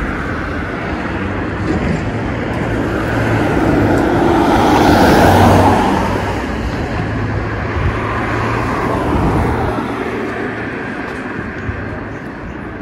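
A vehicle passes close by on a city street, swelling to its loudest about five seconds in and then fading, over steady traffic noise.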